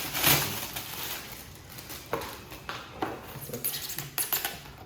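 Handling noise from a foam toy glider: scattered light clicks and knocks as it is held and turned about.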